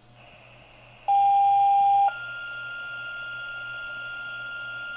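Motorola Minitor fire pager sounding a two-tone sequential page: after some faint radio hiss, a loud lower tone holds for about a second and then jumps straight to a higher, quieter tone held for about three seconds. This is the alert tone that calls the volunteer fire department out to a structure fire.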